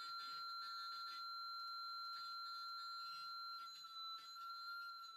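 Steady whistle from a Nooelec RTL-SDR receiver tuned in upper sideband onto a strong AM broadcast station's carrier. The carrier beats into a single pure tone, which shifts slightly in pitch about four seconds in as the tuning is nudged.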